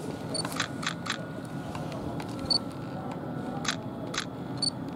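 Platform sound beside a stopped electric train with its doors open: a steady low hum, several sharp clicks, and three short high beeps about two seconds apart.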